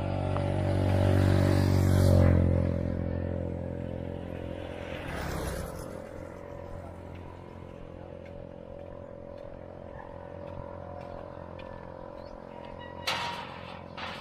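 A motor vehicle's engine running close by, loudest about two seconds in and then fading to a steady low hum. A sharp knock near the end.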